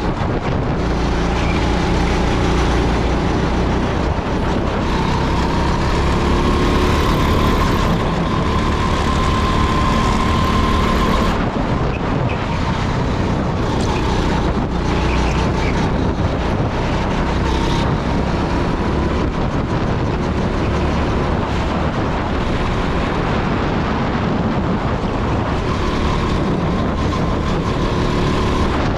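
Rental go-kart's engine running hard, heard onboard over a steady rush of wind and road noise. The engine note climbs slowly, drops sharply about eleven seconds in, then climbs again near the end.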